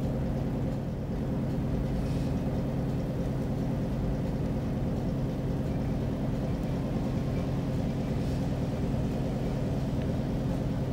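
Isuzu Erga city bus heard from inside the passenger cabin: the diesel engine runs with a steady hum at an even pitch, over road and cabin noise.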